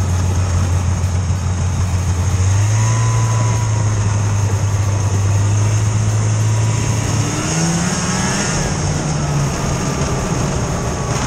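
Rotax-engined snowmobile running at speed over lake ice, its engine note stepping up about two seconds in and rising again later as it speeds up, with wind rushing past.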